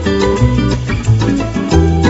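Background music with a bass line and plucked guitar, in a Latin, salsa-like style.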